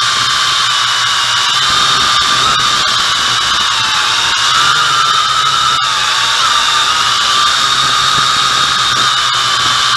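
MJX X101 quadcopter's motors and propellers whining steadily, heard up close from a camera mounted on the drone. The pitch wavers slightly as the throttle shifts.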